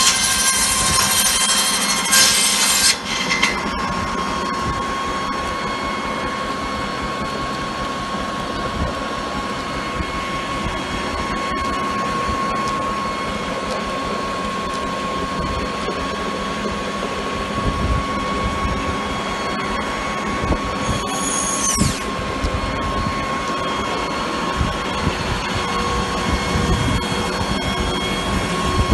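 Belt-driven Victorian circular saw bench cutting through timber, loud and hissing, for about the first three seconds. The blade then spins free with a steady whine over the running belt drive. A brief high falling squeal comes about three-quarters of the way through.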